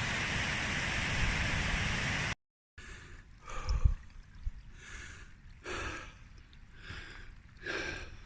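Steady rushing noise, wind on the microphone or running water, that cuts off abruptly about two and a half seconds in; then a hiker's heavy breathing, a breath roughly every second, while climbing.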